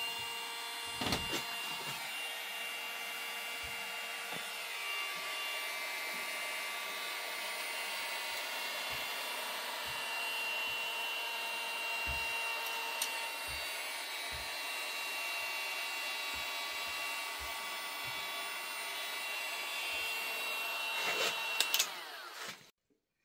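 DeWalt 18V cordless heat gun running steadily, its fan blowing with a steady whine while it shrinks heat-shrink tubing onto a red battery cable lug. A few light handling knocks sound under it, and the gun switches off near the end.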